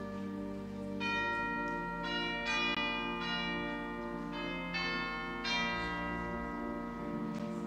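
Closing music of bells: bell tones struck one after another, each ringing and fading, over sustained low chords.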